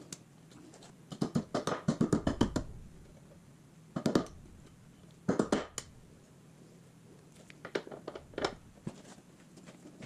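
Hand tools clicking and knocking against metal parts in short bursts: a quick run of clicks about a second in, then short clusters near four, five and a half and eight seconds.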